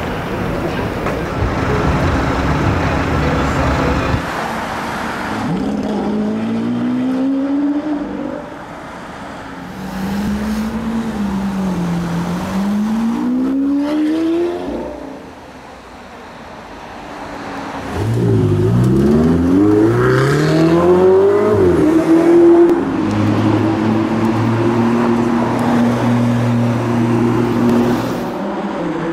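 Sports car engines pulling away on a street: the engine note climbs, dips and climbs again, then rises steeply through several gearchanges before settling into a steady drone, over general traffic noise.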